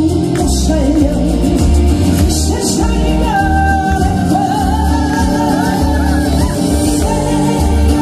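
A voice singing over backing music with a steady, heavy bass beat.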